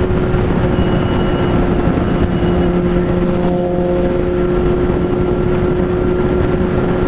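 Sport bike engine running at a steady cruising speed with an unchanging pitch, over heavy low wind and road rumble on the microphone.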